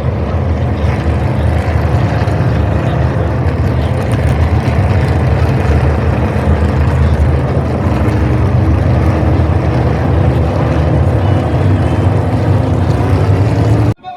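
NASCAR Cup Series stock cars' V8 engines running loud and steady, with no clear revving up or down. The sound cuts off abruptly near the end.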